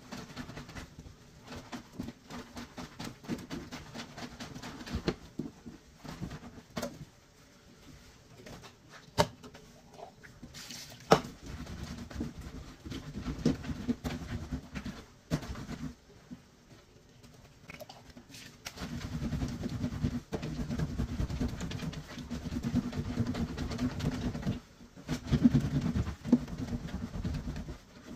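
Soapy wet clothes scrubbed by hand against a wooden-framed washboard: rhythmic rubbing and squelching with scattered clicks and knocks, the rubbing heavier and denser in the last third.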